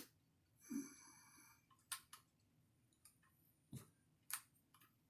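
Faint clicks and taps of small parts as a wheel nut is fitted onto an RC buggy's wheel, with a short squeak about a second in.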